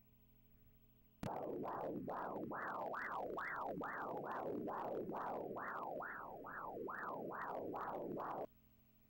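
Pulsed-wave Doppler audio from an ultrasound machine tracing fetal umbilical artery blood flow: a rhythmic whooshing pulse, a little over two beats a second, matching a fetal heart rate of about 137 bpm. It starts suddenly with a click about a second in and cuts off near the end.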